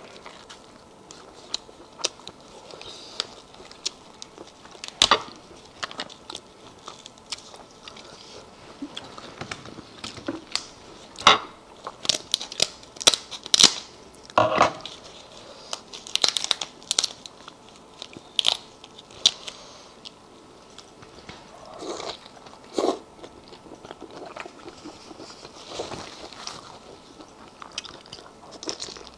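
Close-up eating sounds of cooked spiny lobster: wet chewing and biting of the meat, with irregular sharp clicks and crackles as it is bitten and pulled from the shell.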